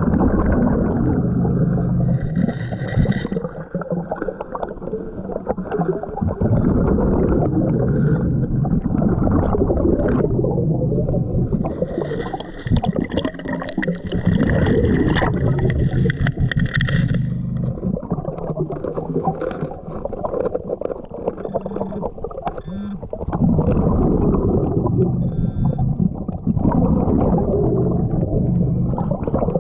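A scuba diver breathing through a regulator, heard underwater: long bubbling, rumbling exhalations alternate with hissing inhalations, about 2 seconds in and again for several seconds near the middle.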